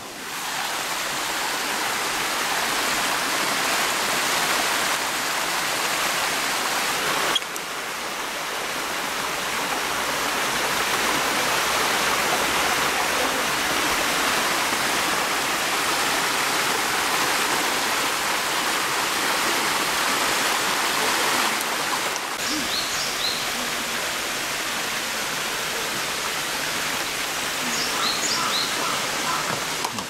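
Shallow stream running over stones, a steady rushing of water. A few short, high chirps come in during the last third.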